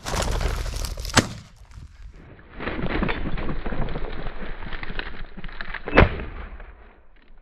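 A shotgun shot about a second in, and again about five seconds later, the second one duller. Between them there is a steady rush of noise.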